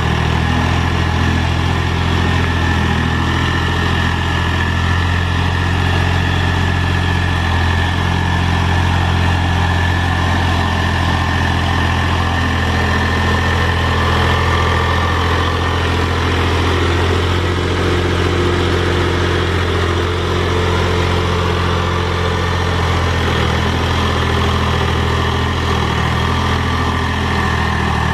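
Mahindra tractor's diesel engine running steadily as the tractor works a box blade through the dirt, its pitch shifting slightly a little past halfway.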